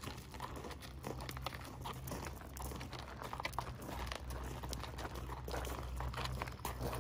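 A horse's hooves and a person's footsteps crunching on gravel at a walk, an uneven run of crunches.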